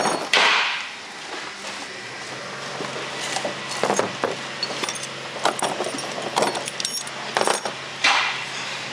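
Bubble wrap crinkling and loose steel parts of a two-post car lift (arm-lock pins, anchor bolts) clinking together as they are unpacked by hand. A loud crinkle at the start, scattered sharp clinks through the middle, and another rustle near the end.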